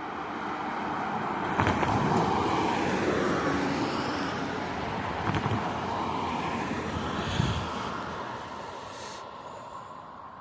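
Road traffic passing, swelling and then fading away, with three short thumps along the way.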